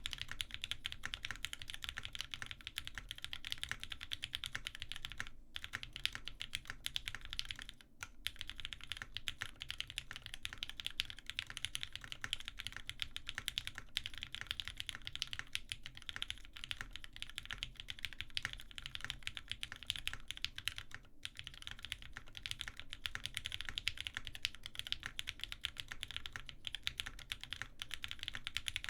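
Fast, continuous typing on a custom tenkeyless mechanical keyboard (Wendy TKL) built with a polycarbonate plate and Ultraglide switches: a dense run of keystroke clacks with a low thock under each. The typing pauses briefly a few times, around 5 s, 8 s and 21 s in.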